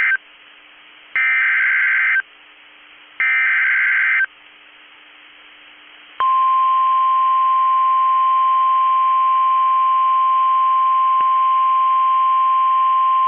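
Emergency Alert System SAME header on NOAA Weather Radio. The tail of one shrill warbling data burst comes at the very start, then two more one-second bursts about two seconds apart. About six seconds in, the weather radio's single steady alert tone starts and holds, signalling the flash flood warning that follows.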